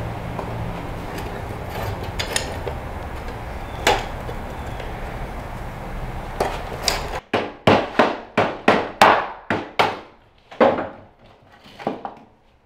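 Strip of expanded steel being bent and worked with pliers: a steady low hum with a few isolated clicks, then from about seven seconds in a quick run of sharp metallic clinks, about two a second, dying away near the end.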